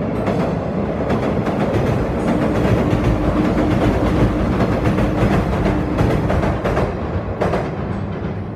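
Electric commuter train passing close by, wheels clattering over rail joints, with a steady hum through the middle of the pass.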